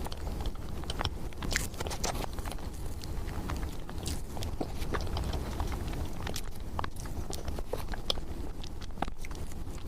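Close-miked chewing and wet mouth sounds of someone eating chocolate mousse cake, with many small irregular clicks.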